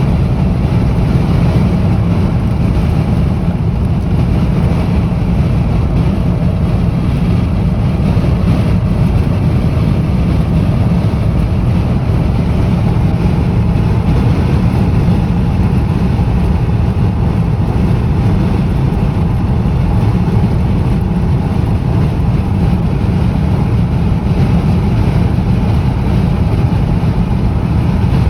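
Strong, gusty wind buffeting the microphone: a loud, steady low rumble without a break.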